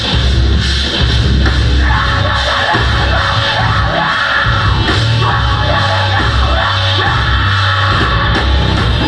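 Metalcore band playing live: loud, heavy rock with yelled vocals.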